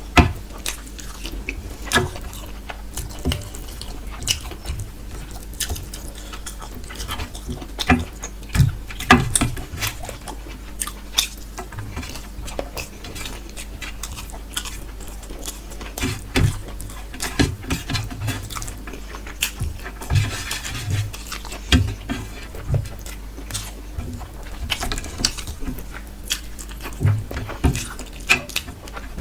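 Close-miked eating: wet chewing and biting of a chicken curry and rice meal, with irregular mouth clicks and smacks and the odd soft knock, over a steady low hum.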